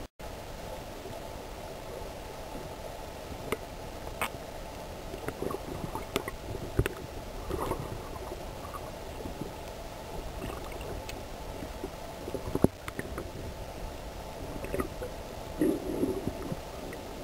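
Underwater ambience through an underwater camera: a muffled, steady rush of water with scattered sharp clicks, the loudest about two-thirds of the way through. The sound cuts out for an instant right at the start.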